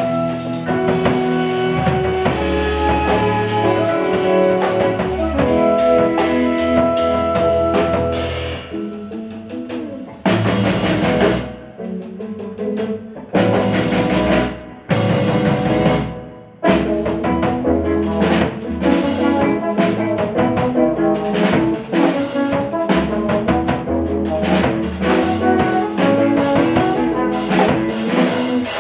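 Live jazz quartet of trombone, electric guitar, six-string bass and drum kit playing. Held melodic lines open the passage. About a third of the way in, the band breaks into three loud crashing blocks with short gaps between them, then the drum kit drives a busy beat under the band.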